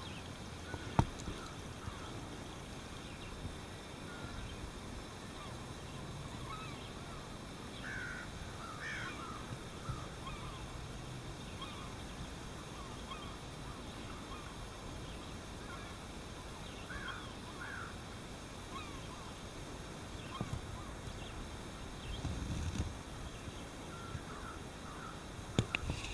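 Birds calling now and then, short high calls scattered over a steady background hiss, with one sharp click about a second in.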